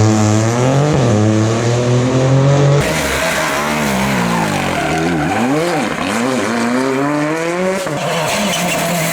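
Rally car engines at full throttle, revving up and falling back with quick gear changes. The sound cuts abruptly to another car about three seconds in and again about eight seconds in.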